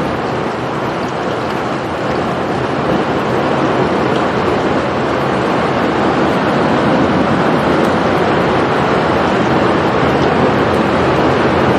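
Loud, steady rushing noise that starts abruptly and grows slowly louder.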